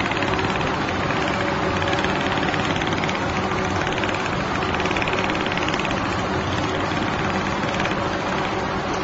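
Computerised 360-degree template sewing machine stitching: the needle runs at a fast, even rate while the head traces around the pattern template, giving a steady mechanical chatter.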